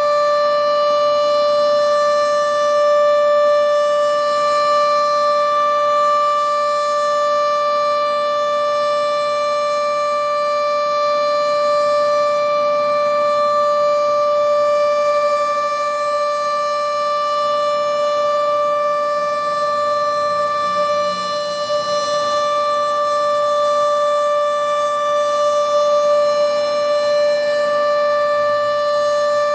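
Sentry 14V outdoor warning siren sounding its steady alert signal: one loud held pitch that neither rises nor falls.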